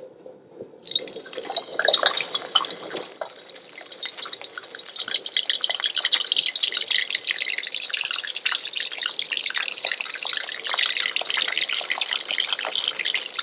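Small whole halalu (juvenile bigeye scad) frying in oil at 320 degrees in a wok. A crackling sizzle starts suddenly about a second in as the fish goes into the oil, grows louder over the next few seconds, then keeps up steadily.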